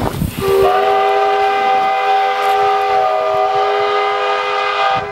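Steam locomotive whistle blowing one long, steady blast of several tones sounding together as a chord. It starts about half a second in, lasts about four and a half seconds and cuts off just before the end.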